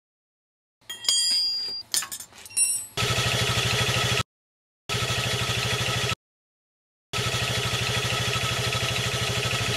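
Clinks and clicks, then a Piaggio Fly 125 scooter's single-cylinder engine running with an even rapid beat, heard in three stretches that each cut off abruptly.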